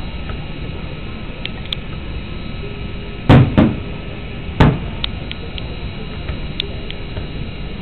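Aerial fireworks shells exploding: three loud booms, two in quick succession a little over three seconds in and a third about a second later, over a steady background hiss.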